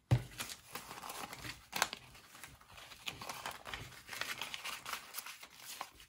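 Paper banknotes rustling and crinkling as a handful of dollar bills is fanned, sorted and shuffled by hand, in irregular crisp snaps; the sharpest comes right at the start and another a little under two seconds in.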